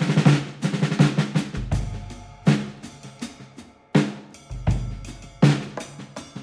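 Background music driven by drums: sharp percussive hits in a rhythmic pattern over sustained pitched tones.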